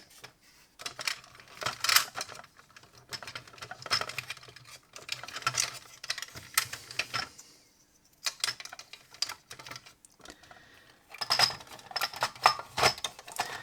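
Small plastic toy buttons and casing parts clicking and knocking as they are handled and fitted back into the toy's housing, in irregular bursts with a brief pause partway through.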